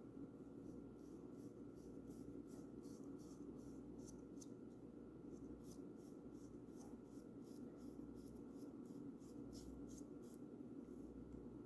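Paintbrush bristles brushing paint onto a bird house: a faint run of short, quick swishes, two or three a second, over a low steady hum.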